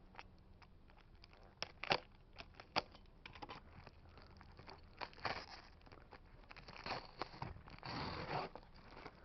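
Packaging being handled and worked open: a few sharp clicks and snaps, then short rustling and crinkling swishes of the package material.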